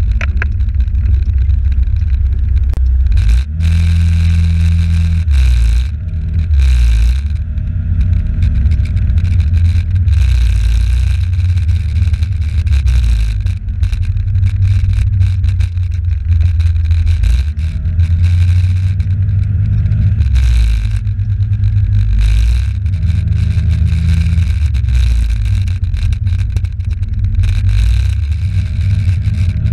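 Wind rumble on a small camera's microphone while riding a motor scooter through town traffic. The scooter's small engine note rises and falls several times as it speeds up and slows.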